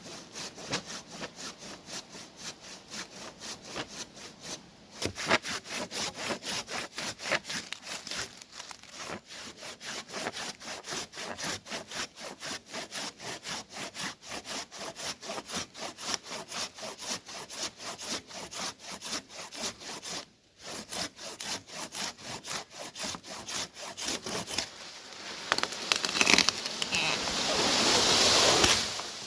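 Hand saw cutting wood in steady back-and-forth strokes, about three a second, with two short pauses. Near the end a louder rustling scrape takes over.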